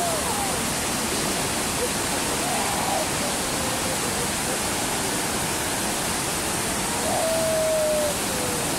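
Whitewater river rapids rushing steadily, an even roar of churning water. About seven seconds in a faint drawn-out tone sounds over it for about a second, dipping slightly in pitch.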